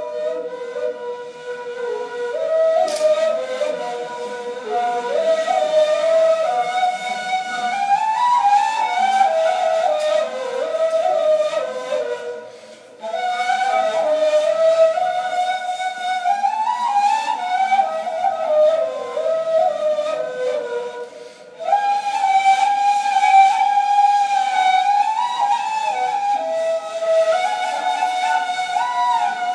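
Two neys, Turkish end-blown reed flutes, playing together in Ottoman classical style: a melody moving by steps over a steady held lower note at first, then rising to longer held notes. The phrases break off briefly twice, about 13 and 21 seconds in.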